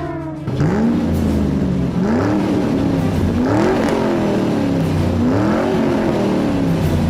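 A vehicle engine sound revving up and dropping back again and again, about four times, over a steady low hum.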